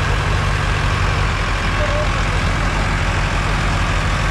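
Diesel tractor engines running steadily, a low even throb that holds at one pitch and one level.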